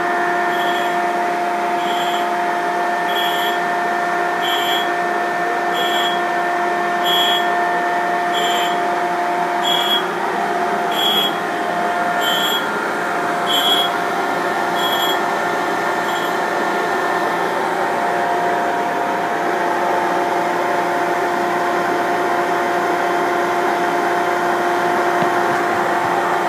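Tool and cutter grinder running with its dust-extraction vacuum: a steady mechanical hum with several held tones. For the first sixteen seconds or so a short, higher hiss comes about every 1.3 s as the wheel grinds the countersink, then stops.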